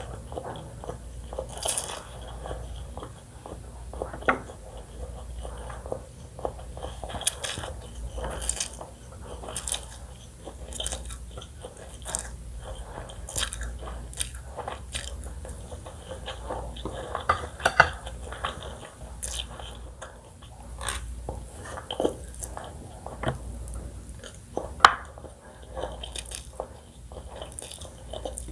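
Close-miked eating: biting into and chewing crispy fried chicken, with many irregular sharp crunches.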